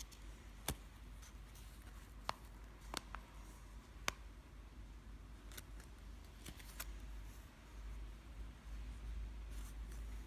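Faint handling noises: scattered sharp light clicks and taps, about eight of them at uneven intervals, as a Zippo lighter still in its plastic wrapper is handled, over a steady low hum.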